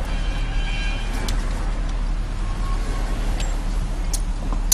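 Steady low rumble of a car's engine and road noise heard from inside the cabin, in slow city traffic, with a few sharp clicks.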